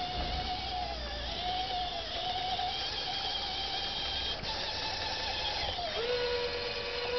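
Radio-controlled scale model Caterpillar D6 bulldozer crawling through loose soil: its drive motors and gears whine with a rattle of the running gear, the pitch dipping briefly now and then, then dropping to a lower steady whine about six seconds in.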